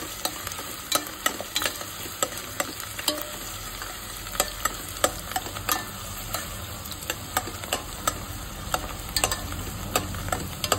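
Chopped onions sizzling as they fry in hot oil in a stainless steel pressure cooker, stirred with a steel spoon. The spoon scrapes and clicks against the pot many times over a steady hiss.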